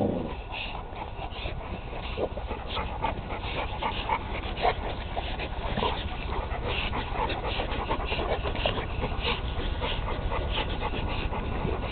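Two Cane Corsos playing tug-of-war over a cloth, with short dog whines and panting amid irregular scuffles as they pull.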